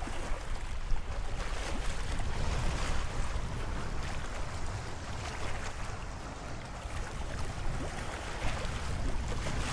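Wind buffeting the microphone in a low, unsteady rumble, over choppy lake waves lapping and splashing against a rocky shore.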